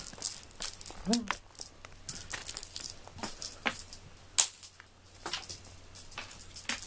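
A small bell jingling in irregular light clicks and tinkles, shaken by a cat toy or by the cat's moving about.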